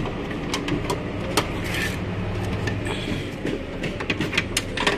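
Light clicks and taps of a car door's latch rod and plastic rod clips being handled and fitted inside the open door panel, over a steady low hum. The clicks come irregularly and crowd together near the end.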